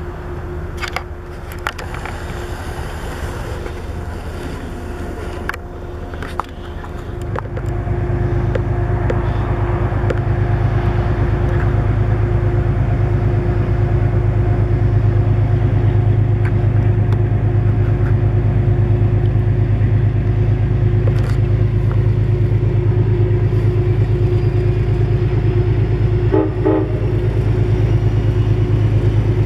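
Metro-North GE Genesis diesel locomotive hauling a passenger train towards the listener, its engine a steady low drone over the rumble of the train. The drone jumps much louder about seven seconds in and holds loud as the train closes in.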